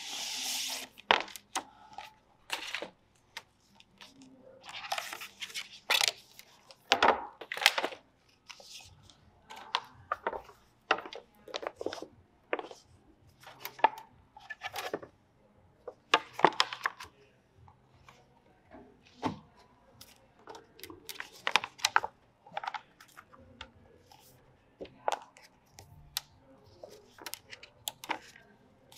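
Handling sounds from unboxing an Apple Smart Folio case and iPad Air: a long run of separate sharp clicks and taps as the folio flaps are folded and the tablet is set down and picked up. Short rustling bursts come in between, the loudest a tearing rustle of the packaging right at the start.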